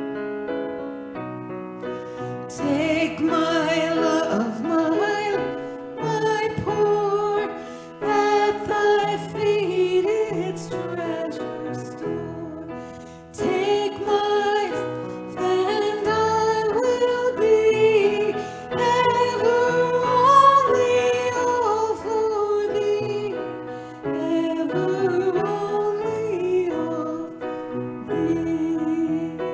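Congregation singing a hymn together with piano accompaniment, in sung phrases separated by short breaks.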